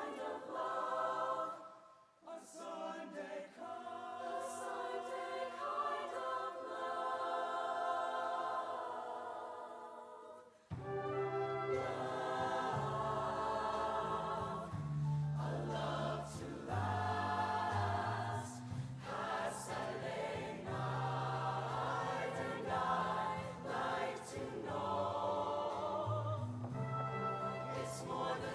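High school show choir singing with live accompaniment, holding long chords. About ten seconds in, a low bass part enters suddenly and the music gets fuller and louder.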